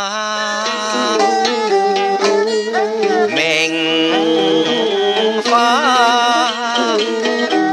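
Cantonese operatic song (yuequ) music in the 乙反中板 section, played by a small traditional ensemble of plucked zheng, bowed yehu coconut fiddle, qinqin and ruan, with a sustained wavering melody over plucked notes.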